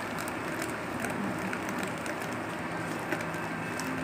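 A hand beating coarse-ground chana dal batter round and round in one direction against a steel plate: a continuous scraping and squelching with small clicks, whipping air into the batter to make it light.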